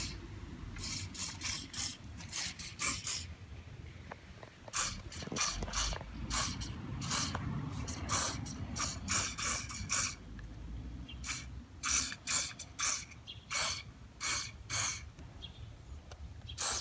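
Aerosol hairspray can giving a rapid series of short hissing squirts into the inside of a rubber handlebar grip, in runs with brief pauses; the hairspray is used to ease the grip onto the bar.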